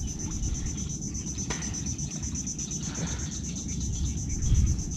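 Insect chorus: a steady, high-pitched trill pulsing rapidly, over a low rumble.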